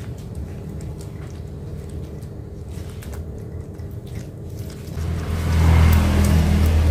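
Stone pestle (ulekan) crushing and grinding fried chilies, tomatoes and shallots in a stone cobek mortar, a soft squishing and scraping as the sambal is mashed. About five seconds in a louder low steady hum comes in and cuts off suddenly.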